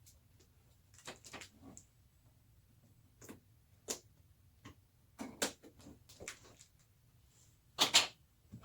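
A graphics card's retail box and packaging being handled and opened: scattered clicks, taps and rustles, with a sharp double knock about eight seconds in that is the loudest sound.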